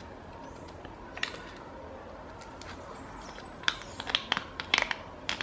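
Thin clear plastic 18650 battery wrap crinkling as fingers work to open it: one faint click about a second in, then a quick run of sharp crackles in the last couple of seconds.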